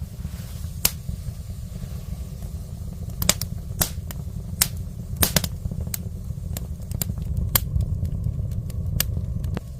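Wood fire burning in a wood stove: irregular sharp crackles and pops, about a dozen in all, over a steady low rumble.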